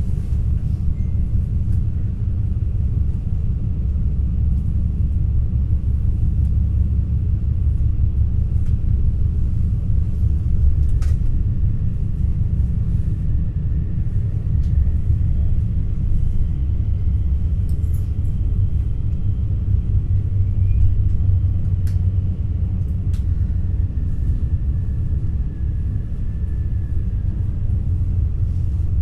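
Steady low rumble of an NS ICNG electric intercity train in motion, heard from inside the passenger car, with a few faint clicks and a faint high whine now and then.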